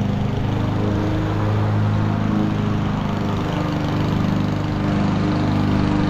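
A small engine running steadily at a constant speed, giving an even, unchanging hum.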